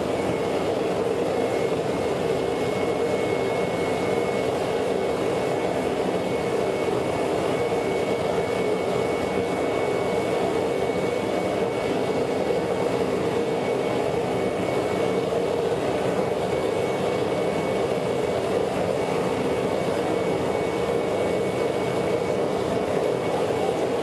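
Homemade naturally aspirated propane burner firing a foundry furnace on its first firing: a steady, even rushing roar of the flame, with a faint high whistle held throughout.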